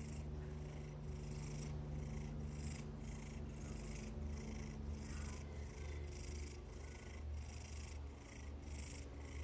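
A domestic cat purring steadily, the purr pulsing about twice a second.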